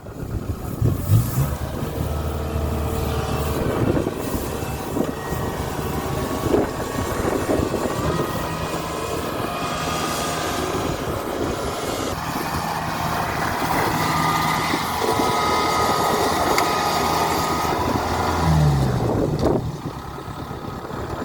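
Kubota DC-70 combine harvester's diesel engine running steadily, with a higher mechanical whine in the middle and the engine pitch dropping near the end.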